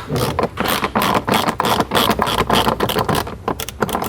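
Plastic interior trim panels of a C7 Corvette being handled and pried loose: a rapid, irregular run of clicks, rattles and knocks over a steady low hum.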